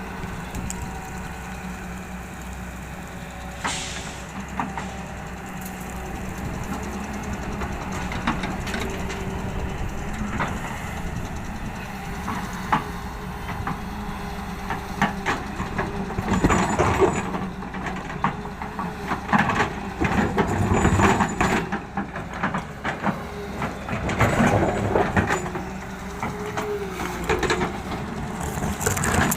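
JCB excavator's diesel engine running steadily. In the second half there are several loud, rough stretches of a few seconds each, typical of gravel being scooped and tipped into a dumper truck.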